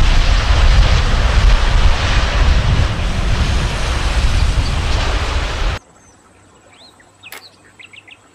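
Boeing 787 Dreamliner airliner landing, a loud steady jet rumble with heavy low end that cuts off suddenly about six seconds in. Faint bird chirps and a single click follow.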